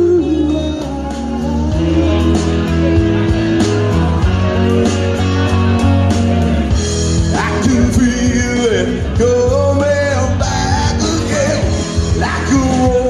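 Live rock music: a man's amplified singing voice, with long held notes that slide in pitch, over a rock backing with guitar and bass.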